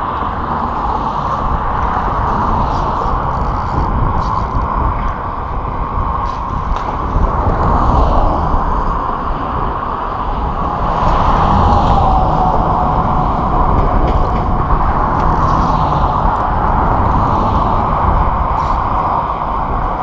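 Steady wind noise buffeting the microphone, mixed with road traffic passing along the bridge, a little louder in the second half.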